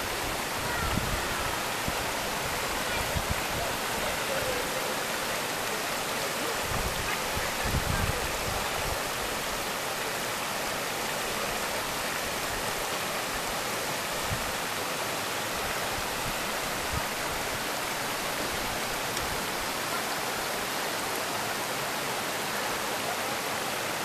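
Small waterfall pouring over boulders into a pool, a steady, even rush of water. There are a few low bumps in the first eight seconds.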